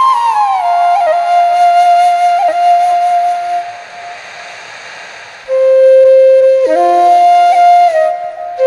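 Background music: a solo flute melody of long held notes that slide between pitches. The first phrase fades out about four seconds in, and a new phrase starts about a second and a half later.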